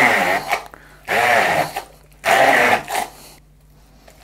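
Hand-held stick blender run in three short pulses, each under a second, puréeing a thick chickpea-and-tahini hummus mixture in a plastic jug.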